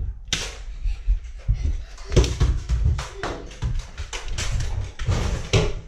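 Toy foam-dart blasters being worked and fired: an irregular string of sharp clacks and snaps over low thumps from handling and movement.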